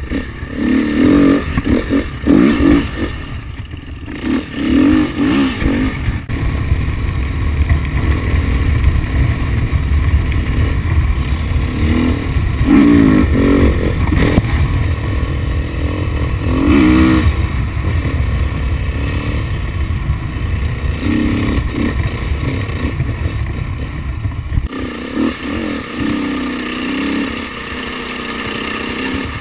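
KTM 350 XCF-W dirt bike's single-cylinder four-stroke engine revving up and down while ridden, its pitch rising and falling again and again, over a heavy low rumble of wind on the microphone that eases near the end.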